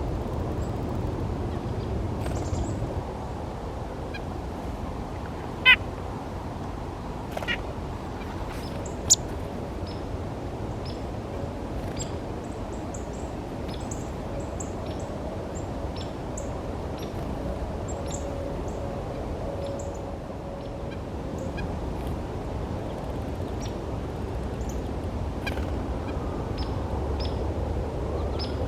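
Chickadees and nuthatches calling: scattered short high chirps throughout, with two louder sharp calls about six and nine seconds in, over a steady low background rumble.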